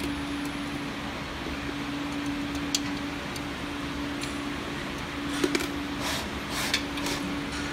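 Steady electric machine hum from a packing machine's measuring-cup filler, with a few sharp metallic clicks as its stainless-steel parts are handled: one about three seconds in, two close together a little after halfway, and one more near the end.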